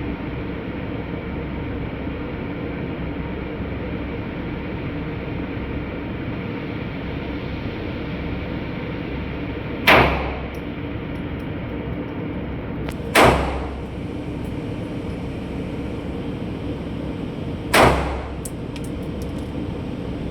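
Three single pistol shots, each a sharp crack that dies away quickly, coming about three and then about five seconds apart over a steady background hum.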